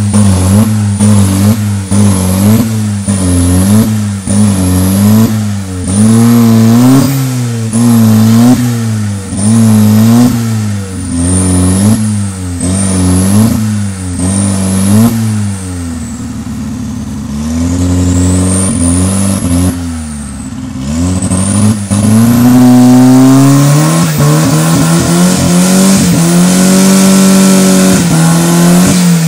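Turbocharged, carburettor-fed Ford Fiesta engine revved in quick blips about once a second, a high turbo whistle rising and falling with each rev. After about fifteen seconds the revs drop away, then the engine climbs again and is held high for several seconds with a steady turbo whistle on top.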